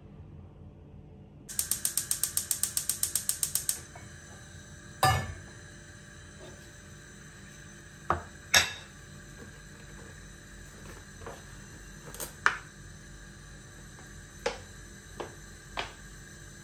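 Gas hob's spark igniter clicking rapidly, about seven clicks a second for two seconds, as the burner is lit. Then a few scattered knocks and ticks of cookware on the stove, the loudest about five seconds in.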